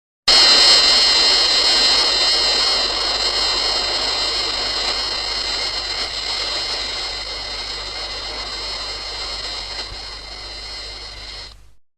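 Gigan monster sound effect: a long synthetic rushing hum with several high, slightly wavering tones over it, slowly fading over about eleven seconds before cutting off.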